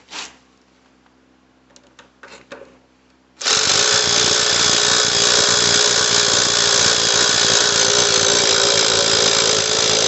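A handheld power tool runs at full speed, steady and loud, starting abruptly about three and a half seconds in, after a few light clicks. It is turning the motorcycle's front axle through a homemade tool made of two 13/16 nuts welded together.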